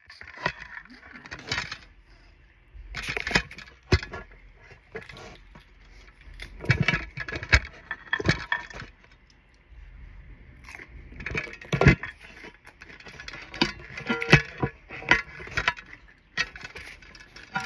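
Close-miked eating sounds: an irregular run of sharp, wet clicks and smacks of biting and chewing, in bursts with short pauses between.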